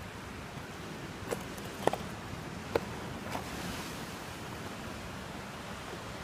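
Steady wash of ocean surf breaking on rocks below, with four short sharp knocks of footsteps on loose stones in the first half.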